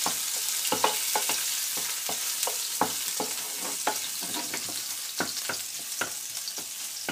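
Diced bacon sizzling in olive oil in a frying pan, about a minute into browning. A wooden spatula stirs the pieces, knocking and scraping against the pan many times at an uneven pace.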